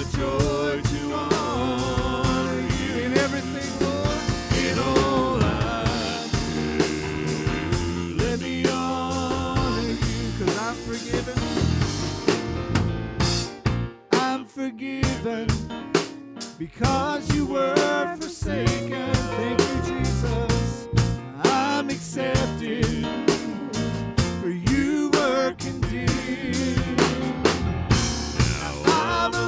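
Live worship band with a full drum kit playing a song, with some singing. The band drops out briefly about halfway through, then the drums come back in.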